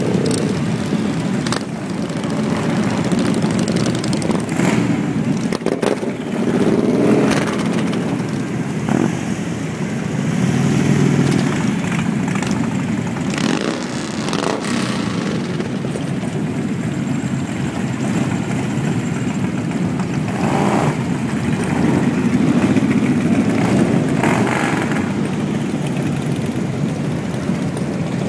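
A procession of many motorcycles, touring bikes and cruisers, riding slowly past. Their engines run continuously, swelling louder as each group passes and easing between groups.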